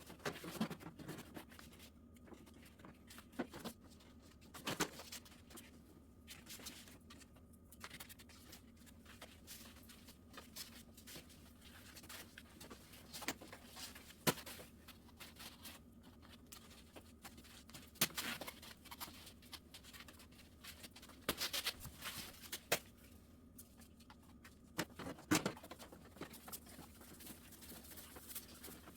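Scattered light knocks and clicks with some scratching, a few seconds apart, over a quiet room background.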